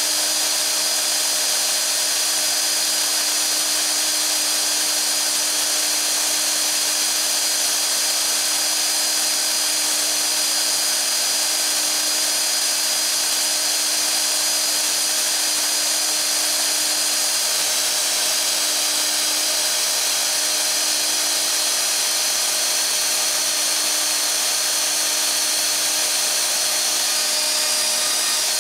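Festool OF 2200 plunge router running at speed with a steady high whine, its spiral-fluted bit cutting into wood to waste out a mortise.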